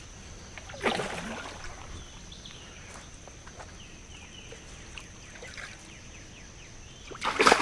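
Water splashing in two noisy bursts, one about a second in and a louder one near the end, as a hooked catfish thrashes at the surface on the line. A steady high insect drone runs underneath.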